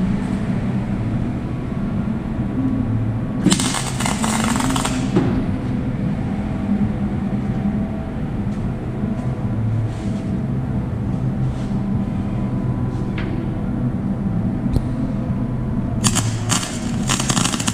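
MIG welder arc crackling in two short bursts of about a second and a half each, about three and a half seconds in and again near the end, as tack welds are laid on thick 19 mm carbon-steel plate with the wire feed set high. A steady low hum runs underneath.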